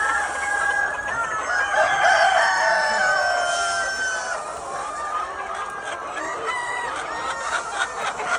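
A flock of chickens calling over one another, clucking, with roosters crowing among them.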